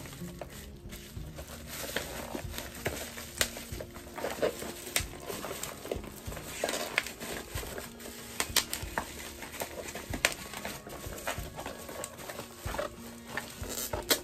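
Plastic shipping wrap on a parcel being handled and crinkled, with irregular crackles and light taps throughout.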